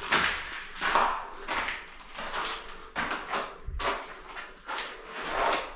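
Footsteps scuffing and crunching over a debris-strewn floor at a steady walking pace, about one step every two-thirds of a second.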